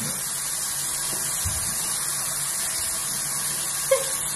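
Bathroom sink tap running steadily. A short pitched blip sounds near the end.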